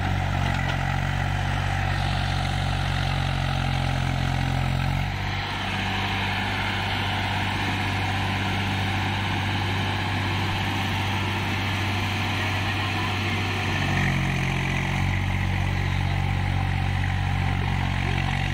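Swaraj 735 FE tractor's three-cylinder diesel engine running under load as it pulls a loaded trolley through mud. From about five seconds in until about fourteen seconds, the steady low engine note turns rough and uneven, then steadies again.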